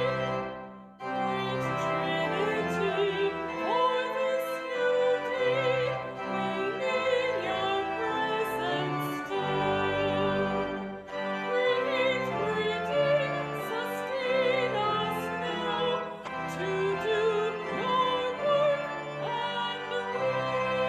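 A woman's voice singing a hymn with marked vibrato over sustained instrumental accompaniment. There is a brief break about a second in, between phrases.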